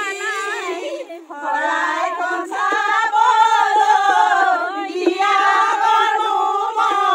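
A group of women singing together without accompaniment, in long drawn-out phrases that break briefly about a second in and again near the five-second mark.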